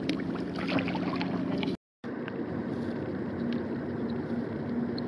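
Open-water ambience: a steady low hum over a soft hiss, with a few light ticks in the first two seconds. The sound drops out completely for a moment about two seconds in, at an edit, then the same hum and hiss carry on.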